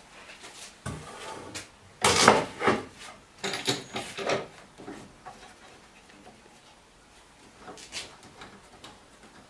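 Hard parts of a sliding mitre saw being handled and moved, a series of clunks and rattles. The loudest cluster comes about two seconds in, more follow around four seconds, and there is a last knock near eight seconds.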